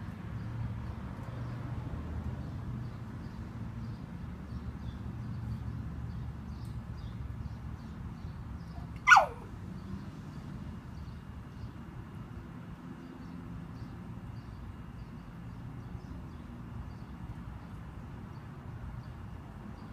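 One short, loud, high call about nine seconds in, sliding steeply down in pitch, over a steady low outdoor rumble.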